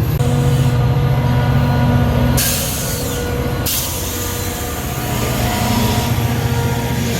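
Metra commuter train running with a steady low hum and steady tones, and a loud hiss of air about two and a half seconds in that lasts about a second and then eases to a softer hiss.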